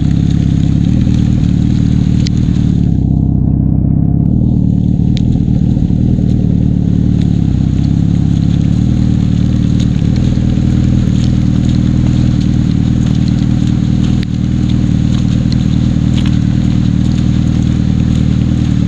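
Motorcycle engine running steadily under way, heard from on board, as the heavy road-tyred bike rides a slick wet mud road, with a brief easing of the level about three-quarters of the way through.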